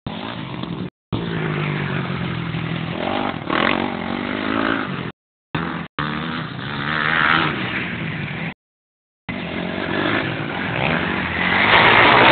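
Motocross dirt bike engine revving and running on the track, rising and falling with the throttle and loudest near the end as the bike passes close. The audio drops out to silence briefly several times.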